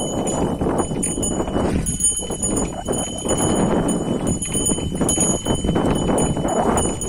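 A pair of bullocks pulling a harrow through dry field soil, with shuffling hoof steps and the steady scrape and rattle of the implement.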